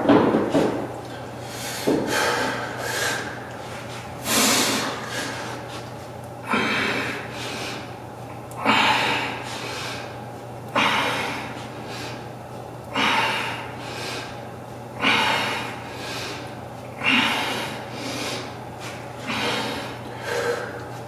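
A man breathing hard and catching his breath after a weight-lifting set, blowing out through pursed lips about every two seconds.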